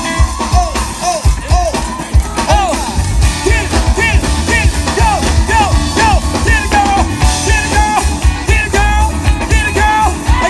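Live band playing loud rock music with a steady bass and drums.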